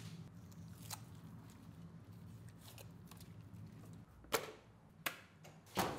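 A steady low hum with sharp knocks over it: a faint one about a second in, then three strong ones in the last two seconds.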